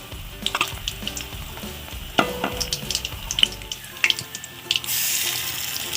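Besan-battered onion pakoras frying in hot oil in a kadai: a steady sizzle with many sharp crackles and pops. The sizzle grows louder about five seconds in.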